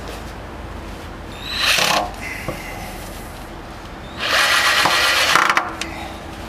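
Cordless drill driving screws through the steel hoops into a wooden barrel's staves, running in two bursts: a short one about a second and a half in, and a longer one of about a second and a half from about four seconds in.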